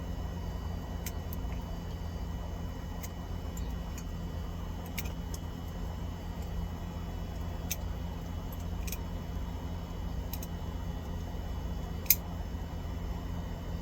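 Scattered light clicks and taps from hands and tools working electrical wiring in a breaker box, with one sharp click about twelve seconds in, over a steady low hum.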